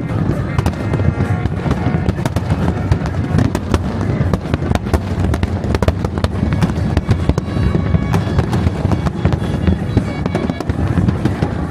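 New Year's Eve fireworks recorded close to the launch site: a dense, continuous stream of bangs and crackles over a steady low rumble.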